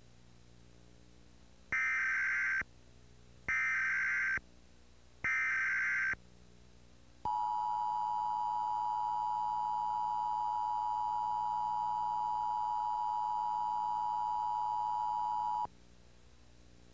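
Emergency Alert System tones: three short bursts of SAME header data, a buzzy digital warble under a second long each, about a second apart, encoding the alert. Then the EAS two-tone attention signal sounds steadily for about eight seconds and cuts off abruptly.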